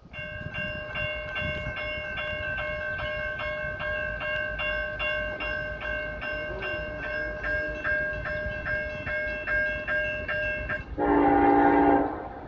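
A warning bell ringing steadily at about three strokes a second, typical of a grade-crossing bell, stops near the end; then the approaching freight locomotive's air horn sounds one blast of about a second, the loudest sound.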